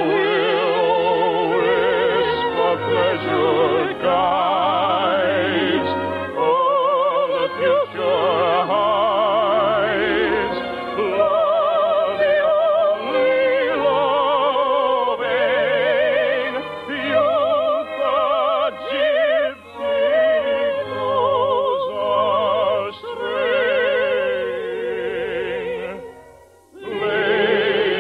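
Operetta music from an old radio broadcast recording: an orchestra with a melody carried in strong vibrato, sounding thin with nothing above the upper midrange. Near the end it briefly drops away, then resumes.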